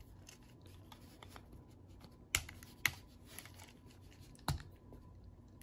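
Hard plastic parts of a Transformers Leader Class Sandstorm figure clicking and knocking as its legs and feet are handled and moved during transformation: scattered light ticks, with three sharper clicks, two close together about halfway and one near the end.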